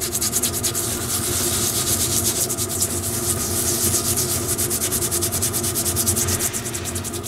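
Abrasive scouring pad scrubbed rapidly back and forth across the crown of a Triumph Bonneville T140 aluminium piston, scraping off crusty carbon deposits. The scraping strokes come fast and steady.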